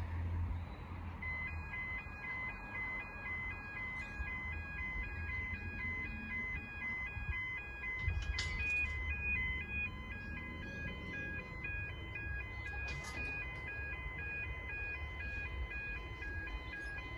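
Railway level crossing warning bell, starting about a second in and ringing a rapid, evenly repeating electronic ding over a low rumble.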